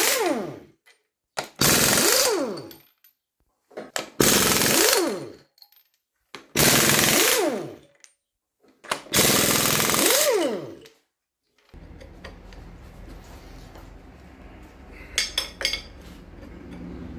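Impact wrench undoing cylinder head nuts: repeated bursts of rapid hammering about a second long, every two and a half seconds, each ending in a falling whine as the tool spins down. The bursts stop about two-thirds of the way through, leaving a low hum and a few light metallic clicks.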